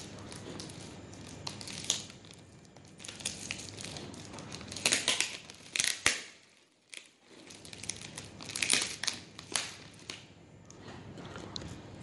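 Plastic wrapping and paper crinkling and tearing in irregular bursts as a parcel is unwrapped by hand, with a short quiet gap just past the middle.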